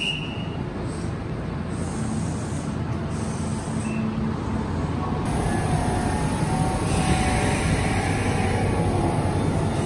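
Steady hum and rumble from a Kintetsu Urban Liner Plus electric express train beside a station platform, mixed with platform ambience. It grows slightly louder about halfway through.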